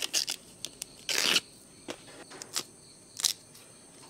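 Tough outer sheaths being torn and scraped off a tender bamboo shoot: a string of short rips and scrapes, the longest and loudest about a second in.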